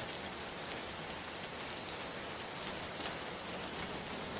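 Steady rain: an even hiss with faint, scattered drop ticks.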